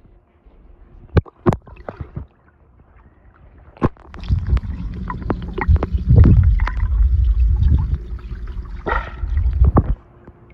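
Swimming-pool water heard through a phone microphone dipped underwater: a few sharp splashes and knocks at first, then from about four seconds a loud, muffled low rumble with clicks and sloshes. It cuts off suddenly near the end as the microphone comes out of the water.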